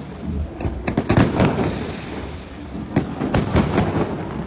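Aerial fireworks shells bursting in rapid succession, with a cluster of sharp bangs about a second in and another about three seconds in, over a continuous rumble of further bursts.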